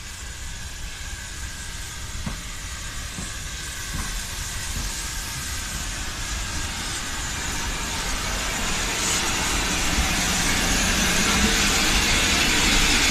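Steam tank locomotives, an Ivatt Class 2 2-6-2T leading, rolling into a station and growing steadily louder as they come alongside. A steam hiss builds up over the last few seconds.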